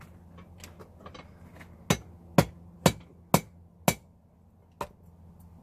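Blacksmith's hammer striking rebar on an anvil while forging tongs: a few light taps, then five hard blows about half a second apart, and one lighter blow.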